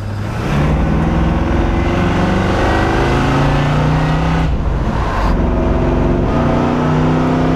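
Supercharged Chevy 350 small-block V8 with a Weiand 144 blower, accelerating under throttle: the engine note climbs in pitch, breaks off briefly about four and a half seconds in, then climbs again.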